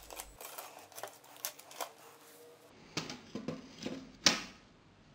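LEGO Technic plastic gears and bricks clicking and rattling as the gearbox is turned and handled by hand to test that it turns freely: a run of light clicks, with one sharper click about four seconds in.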